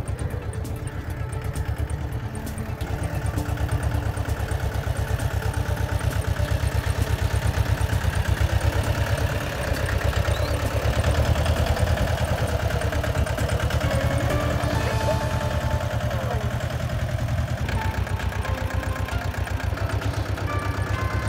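Mahindra Jivo 245 DI mini tractor's two-cylinder diesel engine running steadily under load as it pulls a tine cultivator through soil. It grows louder as the tractor comes close, about eight seconds in.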